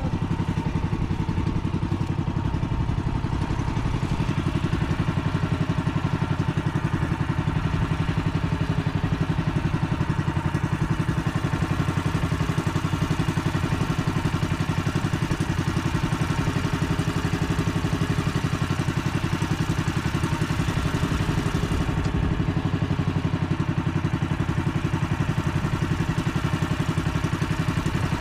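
Engine of a motorized outrigger fishing boat running steadily while the boat is underway trolling, a fast even chugging with no change in pace.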